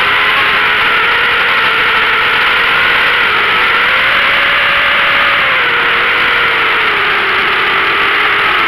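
Electric motors and propellers of a ZMR250 racing quadcopter, heard from its onboard camera, whining steadily in flight. The pitch rises a little about four seconds in and eases back down near the end as the throttle changes.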